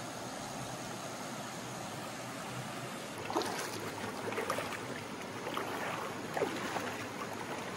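Creek water running steadily over rock ledges; from about three seconds in, irregular splashing footsteps of a person wading through ankle-deep water.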